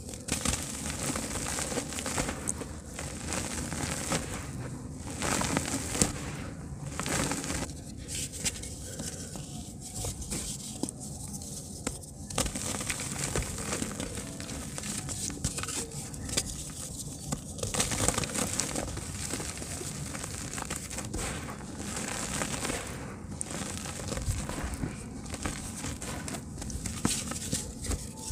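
Soft grey dirt crumbling in squeezing hands: clumps breaking apart with an irregular crackle, and crumbs and grains pattering back onto the heap.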